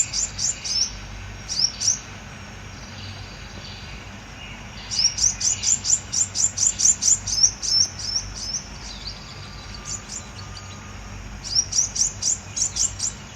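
White-vented myna calling: series of sharp, high, quickly falling notes, about four a second. A few come at the start, a long run comes from about five seconds in, and another run comes near the end.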